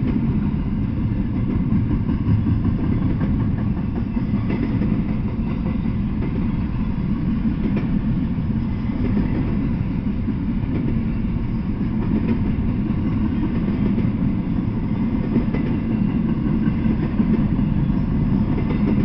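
Double-stack intermodal freight train rolling past, its steel wheels on the rails making a steady low rumble.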